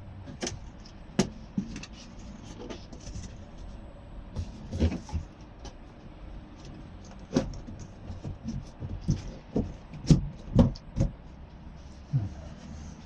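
Irregular knocks, clunks and clicks of a sandwich-panel enclosure door being handled and fitted into place. The knocks come in scattered single strikes and short clusters, densest and loudest in the second half.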